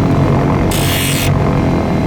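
Cabin drone of a Cessna 340A's twin six-cylinder TSIO-520 piston engines running steadily. A brief hiss cuts in for about half a second near the middle.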